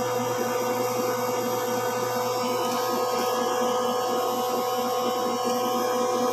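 Steady machine hum with several constant tones, unchanging throughout.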